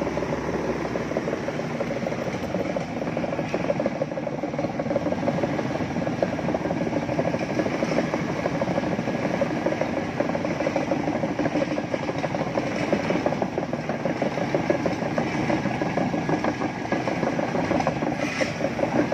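Sumitomo crawler excavator travelling on a dirt track: its diesel engine running steadily under the continuous rapid clanking and rattling of its steel tracks.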